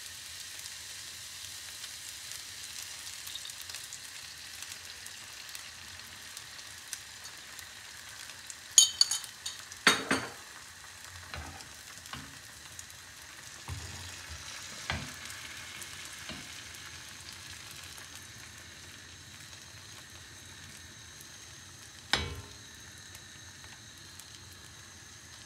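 Salami and sucuk strips, then a thin layer of beaten egg, frying in an oiled crêpe pan: a steady sizzling hiss. A few sharp knocks break in, the loudest about nine to ten seconds in and another near twenty-two seconds.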